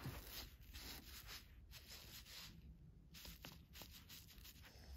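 Faint scratching of a felt-tip marker writing on paper, in short irregular strokes as the letters are drawn.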